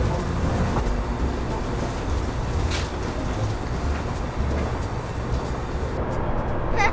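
Steady low rumble of distant expressway traffic, a continuous hum of passing cars.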